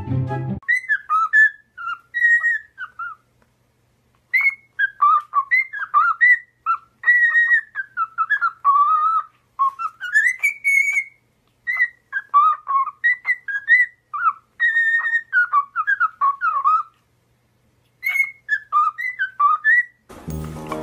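High whistled notes sliding up and down, in quick chirpy phrases with short pauses between them.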